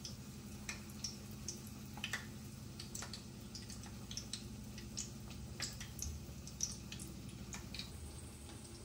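Tempura-battered broccoli and carrot pieces frying in hot oil: irregular small pops and crackles, several a second, over a low steady hum.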